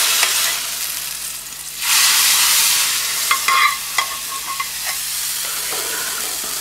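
Hot-oil tadka sizzling loudly as it hits the cooked lentils in the pot, with a fresh burst of sizzling about two seconds in as more goes in. A few metal clinks of a spoon against the aluminium pot follow, and a lower sizzle carries on.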